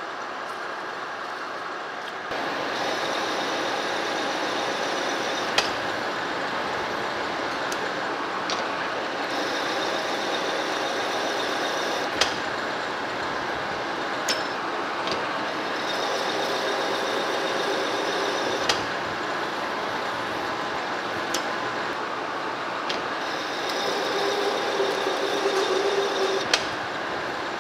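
Metal lathe running slowly while single-point threading a steel shaft (1 inch, 14 threads per inch), pass after pass. A steady machine run with a high cutting hiss that comes and goes, broken by several sharp clicks.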